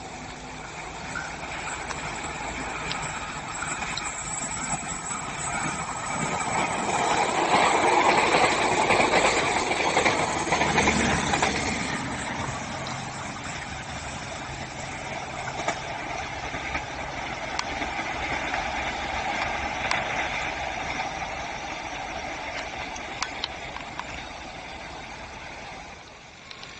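A diesel-hauled train passing: the locomotive's engine and the carriages' wheels on the rails make a steady rumble that is loudest about eight to eleven seconds in, then runs on with occasional sharp clicks and drops off near the end.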